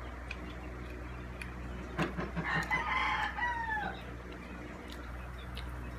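A rooster crowing once, about halfway through: one call that rises and then falls away, over a steady low hum.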